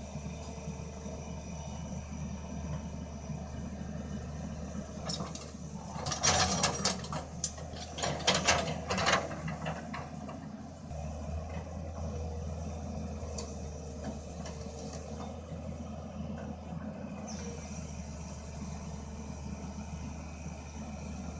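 Hydraulic excavator's diesel engine running steadily while the machine works. From about six to nine seconds in there is a louder run of knocks and rattles as the bucket cuts and scrapes the soil.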